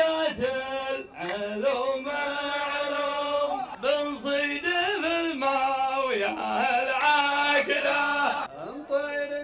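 Men's voices chanting a verse of Arabic poetry to a slow, drawn-out melody, in several long phrases with held, wavering notes and short breaks between them.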